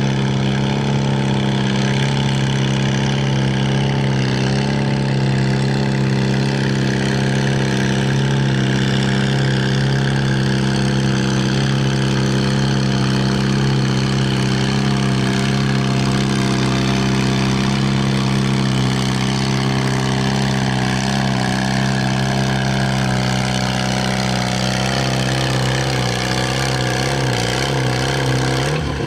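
Vintage farm tractor's engine running steadily under load as it pulls a weight-transfer sled. Its pitch drops near the end as the pull finishes.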